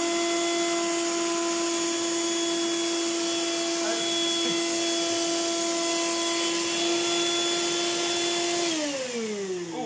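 2003 Electrolux lightweight bagless upright vacuum cleaner running, small but so loud, with a strong steady whine over a hiss. Near the end it is switched off and the whine falls in pitch as the motor winds down. The owner says it doesn't sound particularly healthy: its fan is loaded up with dust, dirt and hairs and it needs a service.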